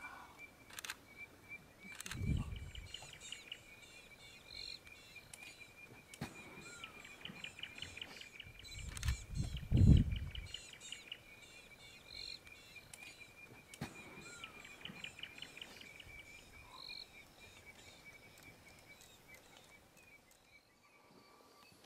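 Evening bush ambience with birds calling: a steady high-pitched tone under short high calls repeating every few seconds and bursts of rapid trilling. Two low rumbles, about two seconds in and around ten seconds in, are the loudest sounds.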